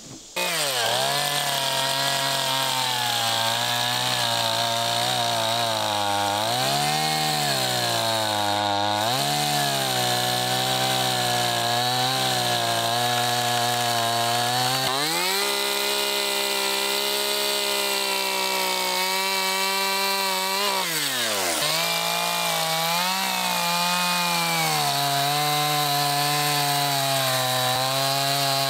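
Stihl Farm Boss two-stroke chainsaw running and cutting through a fallen tree trunk. It cuts in abruptly at the start, and its engine pitch dips and climbs back several times as the chain bogs in the wood and is revved free.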